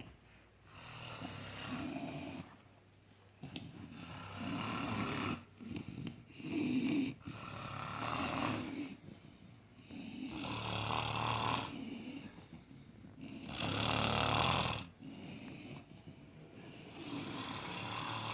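Several sleepers snoring, their snores overlapping in long swells every few seconds, the loudest about two thirds of the way through.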